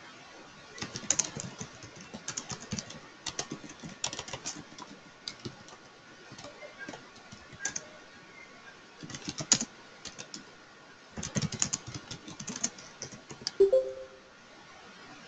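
Typing on a computer keyboard: several short bursts of key clicks separated by pauses. A brief tone near the end.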